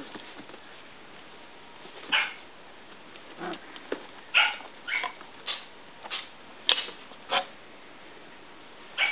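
Three-week-old Icelandic sheepdog puppies giving short, high yips while they play-wrestle, about nine yips spread through the clip.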